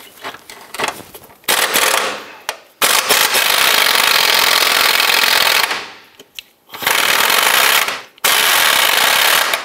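Impact wrench with a long 18 mm socket hammering out subframe bolts in four bursts, the longest about three seconds, with a few light clicks before the first.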